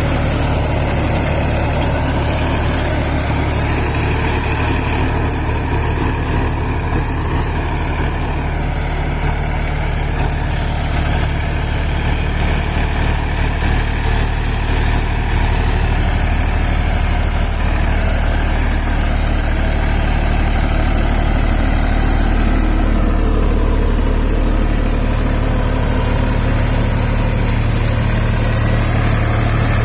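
Massey Ferguson 254 Dynasmart tractor's diesel engine running steadily, a little louder in the second half.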